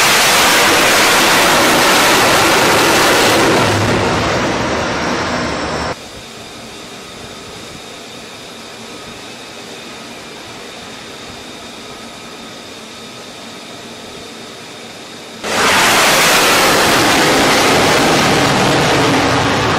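Jet fighter engine roaring as the aircraft passes low over a carrier deck. It cuts off abruptly about six seconds in, leaving a quieter steady jet rumble with a faint whine. A second loud jet roar starts suddenly about four seconds from the end.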